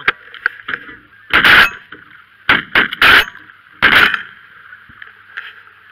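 A volley of about five shotgun blasts from several hunters firing at a flock of geese, between about one and four seconds in. Geese honk throughout.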